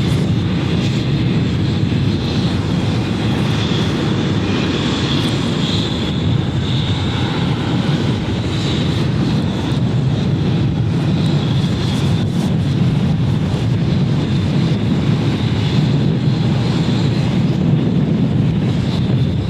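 Jet airliner engines running: a steady low rumble with a faint high whine above it.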